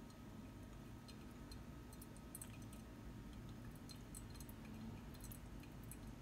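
Faint, irregular ticking and dripping of coffee draining through a Hario V60 ceramic dripper into a glass, over a low steady hum.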